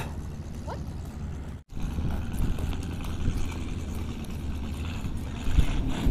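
Wind rumbling on a phone microphone outdoors, with a few footstep knocks near the end; the sound cuts out completely for a moment under two seconds in.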